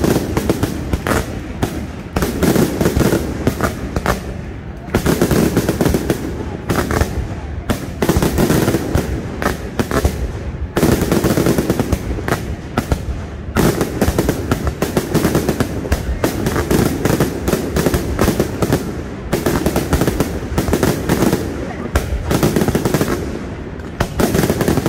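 Aerial fireworks display firing a dense, continuous barrage of bangs and crackles, shell after shell with no pause.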